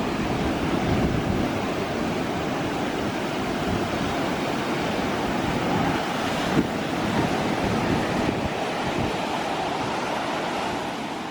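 Ocean surf breaking and washing up the beach, a steady rushing wash with wind buffeting the microphone in low rumbles, and one brief thump about halfway through.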